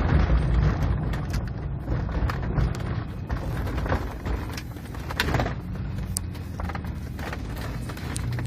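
1999 Chevrolet Blazer driving, with engine and road noise heard inside the cab and scattered light clicks and knocks. Its transfer-case module is unplugged, and the automatic transmission is shifting at the right road speeds.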